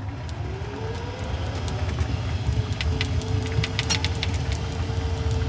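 Old, beat-up electric utility vehicle driving on pavement: a low rumble from the ride, and the electric motor's whine rising in pitch over the first second, then holding steady while the sound slowly grows louder. A few quick rattling clicks come from the vehicle around the middle.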